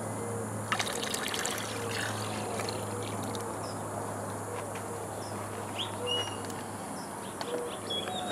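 Water splashing and trickling as a black plastic gold pan is dipped and tilted in a tub of water, washing down a concentrate of very fine gold, with a cluster of splashes about a second in. A bird chirps a few times in the background.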